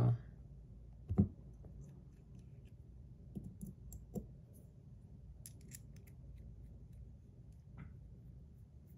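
Stainless steel fidget spinner being handled and spun: a few scattered light metallic clicks and taps, the loudest about a second in, with long quiet stretches between.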